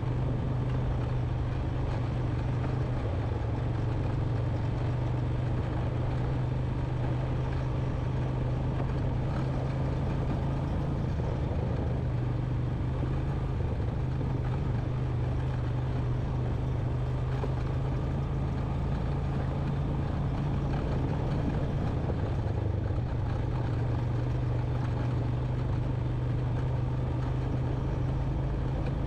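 2001 Honda Recon 250 ATV's single-cylinder four-stroke engine running steadily as the quad rides along a dirt trail, a constant low drone.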